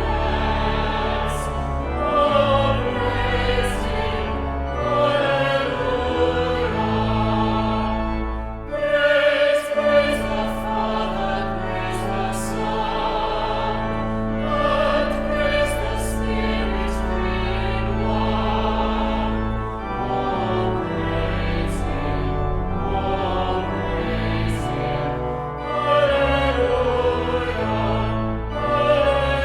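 Classical choral music: voices singing with vibrato over long, sustained low instrumental notes, with a short break between phrases about nine seconds in.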